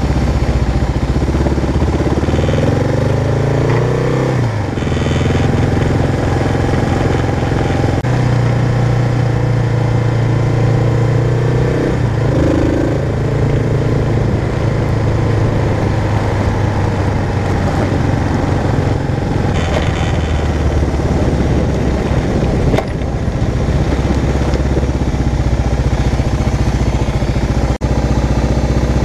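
Kawasaki KLR650's single-cylinder four-stroke engine running while the motorcycle rides along. The engine note rises from about two seconds in and falls back sharply at about four and a half seconds, and rises briefly again about twelve seconds in. A couple of sharp knocks come through in the second half, the last one shortly before the end.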